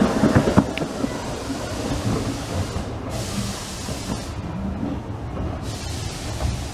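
15-inch-gauge miniature steam train running: a steady low rumble with a few sharp knocks in the first second, and two spells of hiss, about three seconds in and again near the end.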